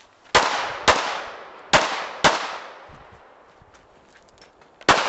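Pistol shots in an IPSC pistol course of fire. Five shots come in pairs about half a second apart, with a pause between the pairs, and each shot rings out with an echoing tail.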